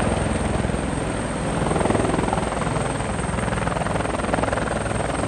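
Helicopter flying steadily, its rotor beating rapidly and evenly over a constant engine sound.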